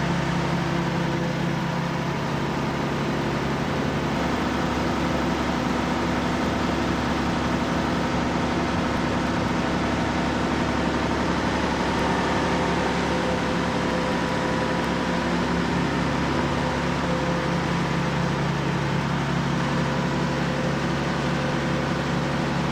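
Steady drone of running machinery with several constant hum tones, the mix of tones shifting about four seconds in and again later on.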